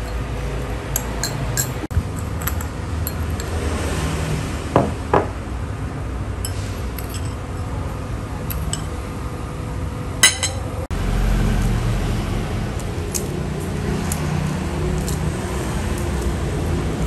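A metal spoon clinking against a small glass bowl, a scatter of light taps with one sharper ringing clink about ten seconds in, over a steady low hum.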